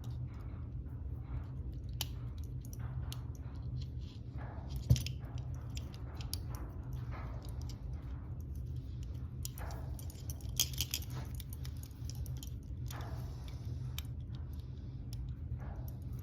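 Small metallic clicks and scrapes of a lock pick working in the keyway of steel Smith & Wesson handcuffs, with the cuffs and chains clinking and one sharper knock about five seconds in, over a steady low hum.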